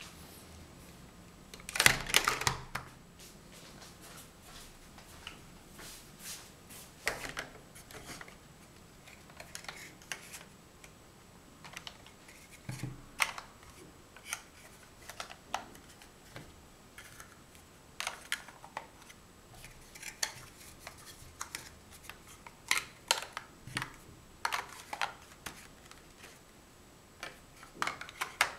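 Large plastic Mega Bloks building blocks clacking and clicking as they are handled and pressed together, in irregular clicks and knocks, with a louder clatter of blocks about two seconds in.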